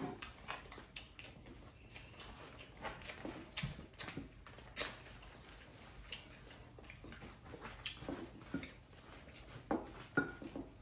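People eating rice and stew quickly, close to the microphone: faint chewing and mouth sounds with scattered sharp clicks, and one louder click about five seconds in.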